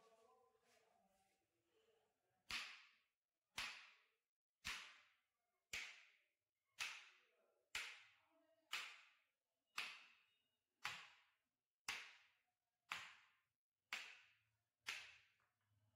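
A sharp hit that fades out quickly, repeated thirteen times at an even pace of about one a second.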